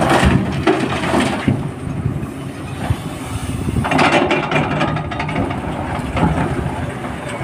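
Komatsu PC300 excavator's diesel engine working under load while loading a tipper. Gravel and rock clatter at the start as the bucket unloads into the truck, and the bucket scrapes and crunches into the rock pile about four seconds in.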